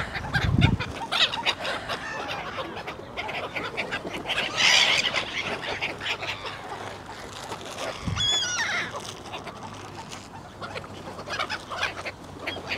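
A flock of park ducks and other waterfowl calling and squabbling over bread, in many short harsh calls, with a louder burst about a third of the way in and a brief wavering high call a little after the middle.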